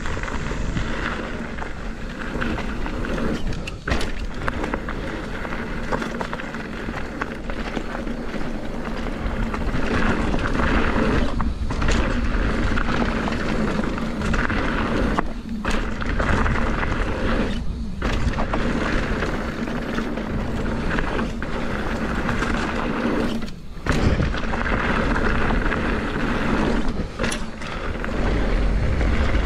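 Mountain bike riding fast down dirt singletrack: tyres rolling and crunching over dirt and gravel, the bike rattling, and wind rushing over the microphone. The noise drops out briefly a few times.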